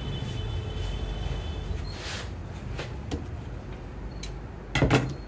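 Hands brushing over suiting cloth on a cutting table with a soft rustle, over a steady low hum. Near the end a wooden tailor's square knocks sharply against the table a few times as it is picked up.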